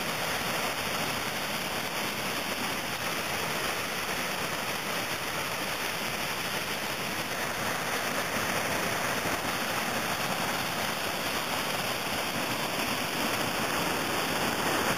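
Steady rush of whitewater pouring over a river ledge drop and churning in the pool below, growing a little louder in the second half.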